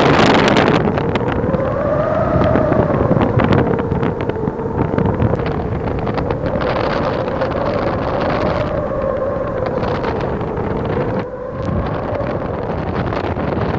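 Strong wind rushing over the microphone high on a frosted steel lattice mast, with a whistling tone under it that slowly wavers up and down in pitch.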